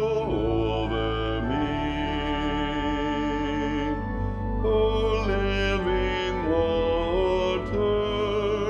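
Music: a slow choral arrangement of held chords, sustained lines over a steady accompaniment, changing every second or two.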